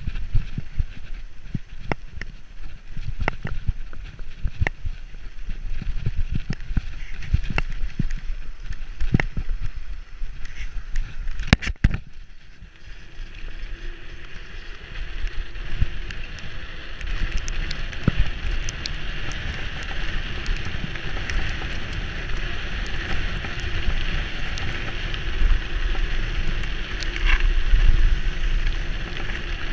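Wind buffeting the GoPro microphone as a Specialized Enduro mountain bike descends at speed. The bike rattles with sharp knocks over rough grass, and about twelve seconds in the knocks give way to a steady hiss of tyres rolling on tarmac.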